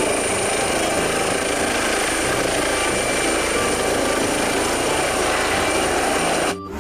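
Air ambulance helicopter, a Eurocopter EC135, lifting off and climbing: steady rotor and turbine noise with a high, steady whine on top. It cuts off abruptly near the end.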